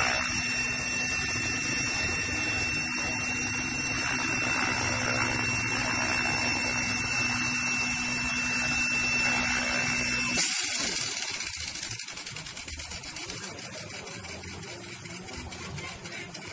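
KDS Agile 5.5 electric RC helicopter hovering, its motor and rotors giving a steady high whine. About ten seconds in there is a sudden knock as it lands with a tail strike; the whine cuts out and the rotors wind down, fading away.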